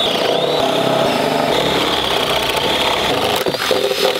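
Cordless drill boring a 1.5-inch hole through a wooden board, its motor whining steadily under load. The whine changes pitch about three and a half seconds in.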